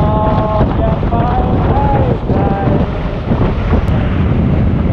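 Wind buffeting the microphone of a helmet camera on a moving small scooter, over the low, steady rumble of the ride. A few short pitched tones, like a voice, sound in the first three seconds.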